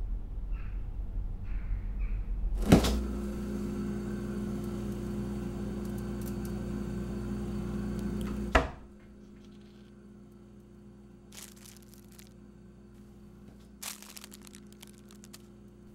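A kitchen appliance clicks on and hums steadily for about six seconds, then stops with another click. After it come a few light rustles and knocks.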